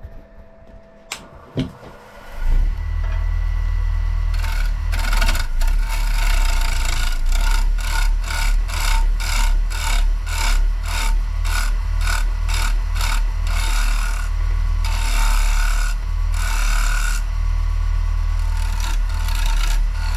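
Wood lathe switched on about two and a half seconds in, running with a steady low hum while a carbide turning tool scrapes the spinning maple bowl in repeated short passes, shaping its lip and curve.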